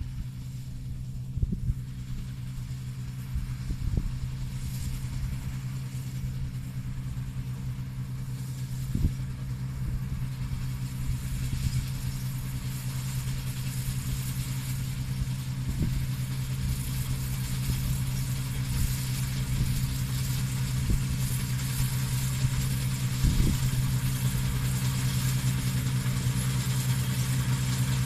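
SAMPO 2010 SR plot combine harvesting wheat: a steady engine hum with the whirr of its working machinery, growing louder as the combine comes closer.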